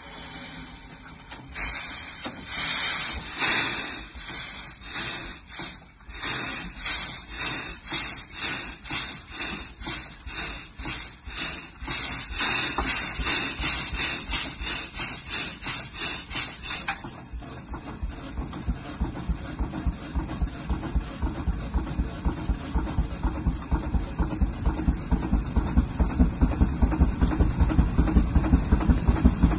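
25 hp George White steam traction engine working against a Baker fan at 95 psi, its exhaust beating in a steady rhythm of about two beats a second with a steam hiss on each beat. About halfway through the hiss cuts off suddenly, and the exhaust beats grow louder and quicker as the engine picks up speed.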